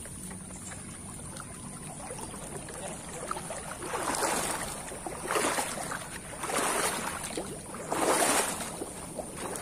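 Footsteps wading and sloshing through a shallow, muddy, grassy stream: four swishing, splashing steps a little over a second apart, starting about four seconds in, the last the loudest.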